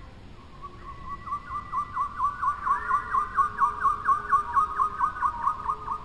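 Cockatiel whistling a rapid run of short repeated notes, about five a second, growing louder as it goes.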